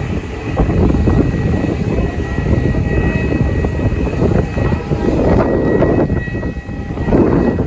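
Turbofan jet engines of an Airbus A320neo (CFM LEAP-1A) running, with a heavy low rumble that swells and dips under a steady high whine of two tones.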